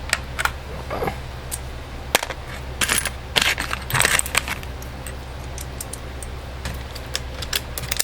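Small metal tools and parts clinking and rattling in scattered clicks, with a cluster of clatter about three to four seconds in, over a low steady hum.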